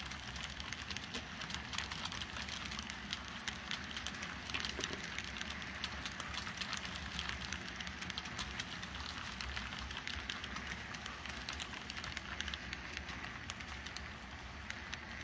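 Model railroad freight cars rolling along the track, their metal wheels making a steady rattle with rapid small clicks over the rail joints, switches and crossing, under a low steady hum.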